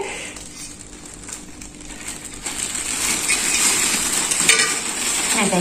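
A plastic bag of small rack pipe connectors being handled: crinkling plastic with hard little parts clinking together. The sound is faint at first and grows louder about halfway through.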